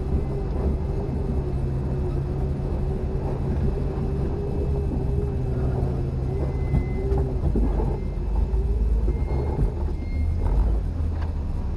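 Jeep engine running at low speed as it crawls a rough dirt trail, a steady low rumble with a wavering whine over it. A few knocks come in the second half as the vehicle rides over bumps.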